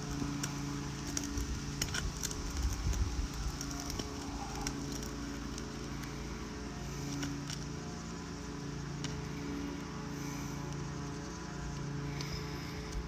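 Scattered clicks, taps and light scraping of a snake tool and roofing hammer working under a roof shingle, busiest in the first few seconds, over a steady low mechanical hum that swells and fades.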